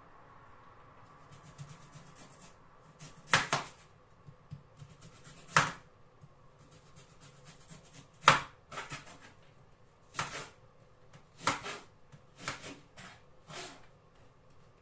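Kitchen knife cutting an onion on a chopping board: separate sharp knocks of the blade on the board every second or two, with fainter clicks between.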